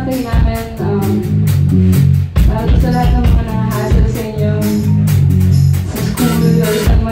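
A live band playing with electric bass, electric guitar, keyboard and drum kit: sustained bass notes under a steady drum beat.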